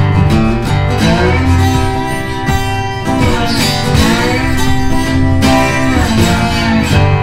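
Background music with guitar, carrying a melody that glides up and down in pitch.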